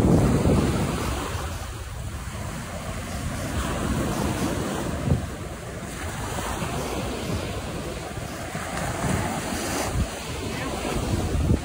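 Surf washing onto the beach, with wind buffeting the microphone in low rumbles. It is loudest at the very start, then swells and eases, with a few brief gusty thumps.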